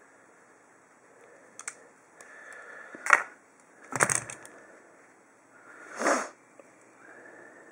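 Hand tools handled while crimping a copper rod into a cable lug: a few separate sharp metal clicks and knocks from pliers and a crimping tool, the sharpest about three seconds in, with light rustling between.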